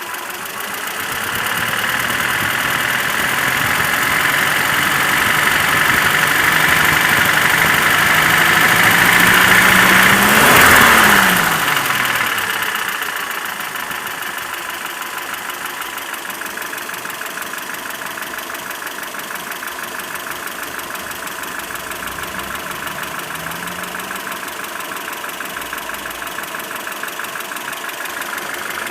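ZMZ-402 inline-four petrol engine, warmed up, with its revs slowly rising for about ten seconds and then the throttle released so it falls back to idle. It idles steadily after that, with one short blip of the throttle near the end. The knock or ringing heard when the throttle is released is a diesel-like rattle, caused by play between the piston pins and connecting rods in all four cylinders.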